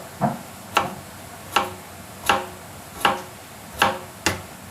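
Knife chopping on a cutting board: a run of sharp knocks, about one every three-quarters of a second, somewhat uneven.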